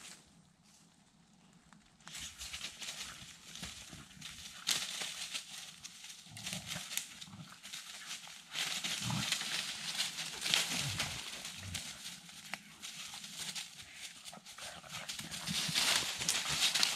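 Dry fallen leaves and pine needles crunching and rustling as border collies run and root about in the leaf litter, an irregular crackle that gets louder about two seconds in.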